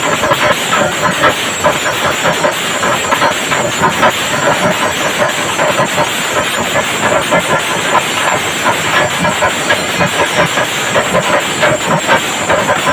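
Chenda melam: a massed ensemble of chenda drums beaten with sticks, with ilathalam hand cymbals clashing, in a loud, steady, dense stream of strokes. The cymbals give a continuous hiss over the drumming.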